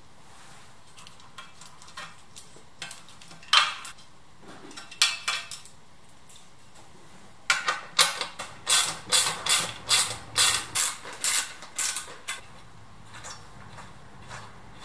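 Sharp clicks and clacks from hands working the parts of a motorcycle headlamp shell and its wiring. A few scattered clicks come first; then, several seconds in, a quick run of about a dozen follows at roughly three a second before dying away.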